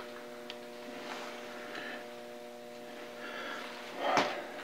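Steady hum of several fixed tones from the idling 1967 South Bend 13-inch lathe, not cutting, with a couple of light clicks as the feed dial is wound back. About four seconds in comes a brief louder rustle.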